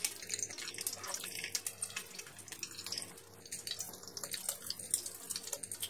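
Whole green bell peppers shallow-frying in oil in a nonstick pan: a steady sizzle with irregular crackles and spits of the hot oil.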